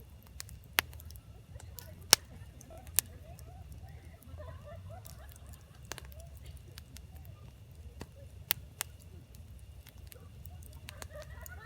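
Burning firewood in a campfire crackling, with several sharp pops, the loudest about two seconds in, over a low steady rumble.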